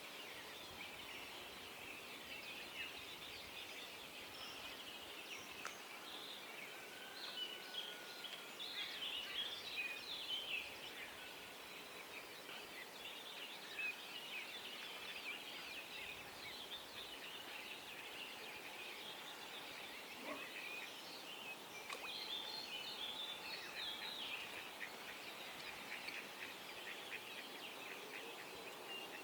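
Dawn chorus: many birds chirping and calling together in a dense, continuous chatter, with louder clusters of calls about a quarter of the way in and again past two-thirds.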